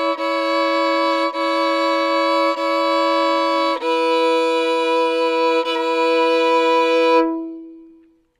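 Fiddle playing slow double stops, the A and D strings bowed together in long even strokes, with a short break at each bow change. After a few strokes on one pair of notes, about four seconds in, it moves to a lower pair with the first finger laid across both strings. The last note is held, then cut off and left to ring away.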